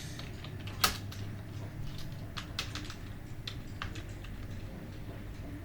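Typing on a computer keyboard: irregular keystroke clicks at an unhurried pace, one much louder than the rest about a second in, over a low steady hum.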